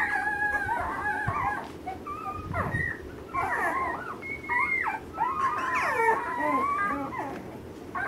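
Ten-day-old Alaskan malamute puppies whimpering, several high, thin cries at once that slide up and down in pitch, coming in bursts with short lulls between them.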